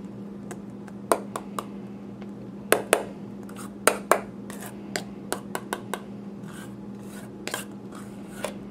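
A utensil scraping and knocking against the inside of a stainless steel mixing bowl as a thick chocolate cream-cheese filling is scraped out, in irregular short clicks and scrapes.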